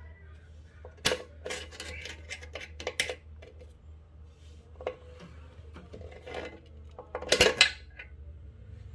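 Scattered sharp clinks and clatters of hard objects being handled, loudest in a cluster about seven and a half seconds in, over a steady low hum.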